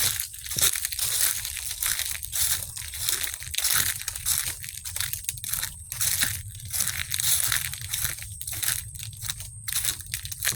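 Footsteps crunching through dry leaves, one crackling crunch after another with short gaps between steps.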